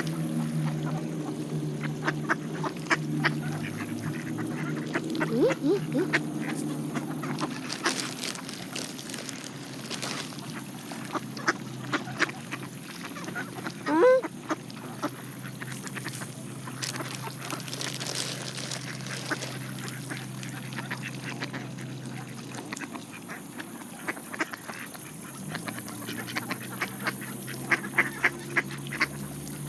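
Mallard ducks quacking while they and Canada geese peck at seeds, with many short clicks of bills on seed throughout. About halfway through comes one loud rising call.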